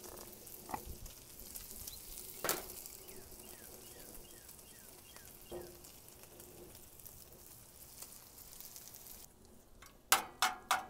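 Food sizzling on a hot Blackstone griddle and cast iron skillet: a steady high hiss with a few soft clicks. The hiss drops away shortly before the end, and a quick run of sharp taps follows as a metal spatula knocks and scrapes in the cast iron skillet among the sausage.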